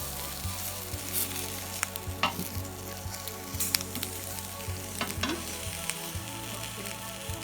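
Thin chicken breast fillets sizzling on a hot oiled grill pan, a steady frying hiss with scattered sharp crackles and clicks.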